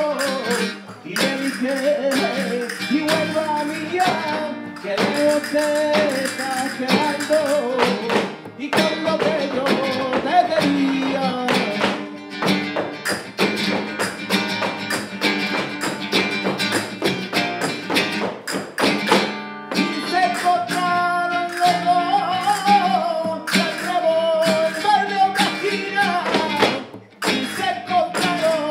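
Flamenco performance: a man singing cante over flamenco guitar, with the sharp taps of two dancers' heeled footwork on a wooden floor. The singing drops out for a stretch in the middle, where the footwork is densest, then comes back.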